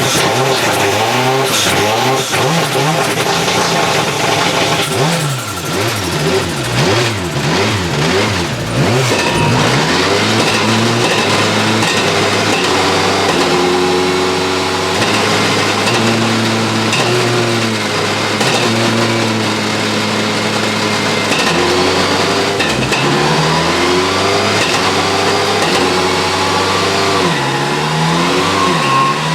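Ford Focus WRC rally car's turbocharged 2-litre four-cylinder engine revving hard in quick blips. A few seconds in come a run of sharp crackles and bangs from the anti-lag system. After that it pulls through the revs, the pitch climbing and dropping in steps at each gear change.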